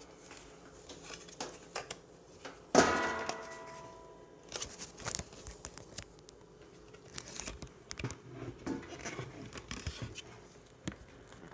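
Plastic dust bin of a Bissell bagless upright vacuum being handled and detached: one sharp knock with a short ringing tail about three seconds in, then scattered light clicks and rattles. The vacuum motor is not running.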